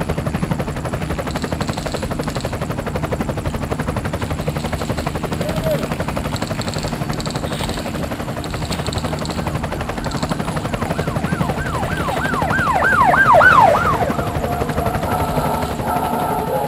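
Helicopter rotor beating steadily. Near the end comes a quick run of rising-and-falling wailing sweeps, about three a second, which are the loudest part.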